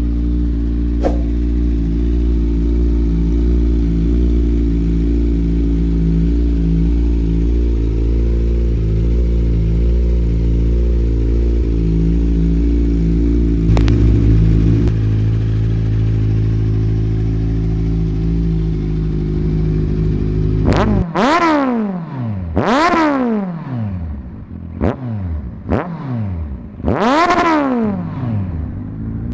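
Kawasaki Ninja 1000's inline-four engine and exhaust idling steadily for about twenty seconds, then revved in a series of quick throttle blips: three big revs with a couple of shorter ones between, each rising and falling back to idle.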